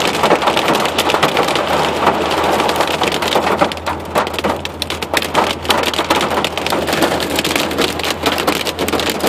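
Hail and heavy rain pelting a truck's roof and windows, heard from inside the cab: a dense, continuous rattle of many small impacts over a steady low hum.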